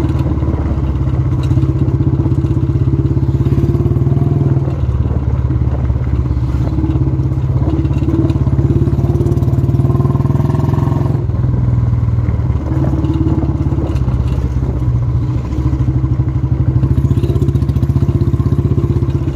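Royal Enfield Classic 350's single-cylinder engine running steadily as the motorcycle rides along a rough road, heard from the rider's seat. Its note changes about five seconds in and again about eleven seconds in.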